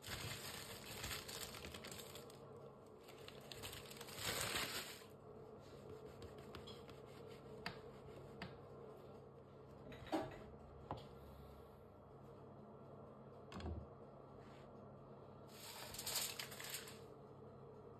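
Faint rustling of a paper bread bag as a baguette is handled, then a few knocks as the crusty baguette is cut on a plastic cutting board. Near the end comes a burst of aluminium foil crinkling on a baking tray.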